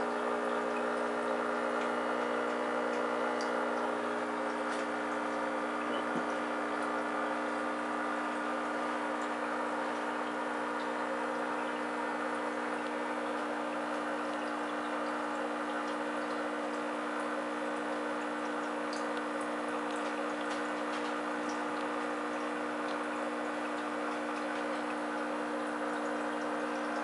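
Aquarium equipment humming steadily, with the constant bubbling and trickle of water from the tank's air line and bubble disc, and faint scattered ticks of bursting bubbles.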